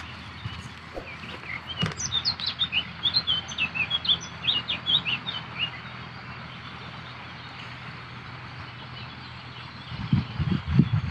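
A songbird singing a quick run of short, high chirps for a few seconds over a steady background hiss. A few loud low bumps come near the end.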